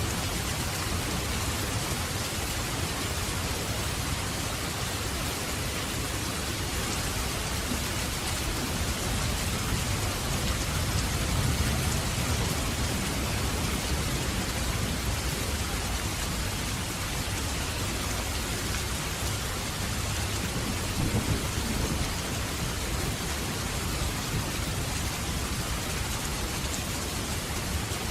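Steady rain with thunder rumbling low underneath, the rumble swelling about ten to twelve seconds in, with a brief louder crack a little after twenty seconds.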